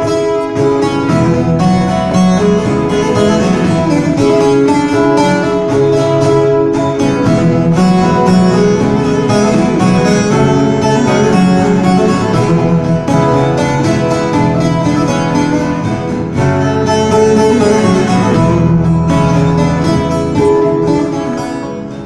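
Instrumental passage of a Turkish folk song: a bağlama (long-necked saz) playing a plucked melody over a low accompaniment, with no singing.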